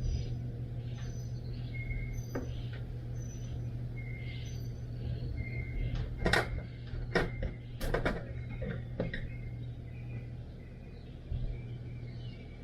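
Several sharp knocks and clicks from work on a dryer vent's taped joint, bunched about halfway through, over a steady low hum. Short high chirps repeat through the first half.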